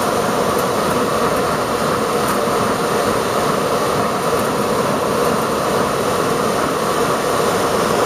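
Variable-speed blower in a Goodman air handler running with the access door off: a steady rush of air through the open cabinet, a sound the technician doesn't like.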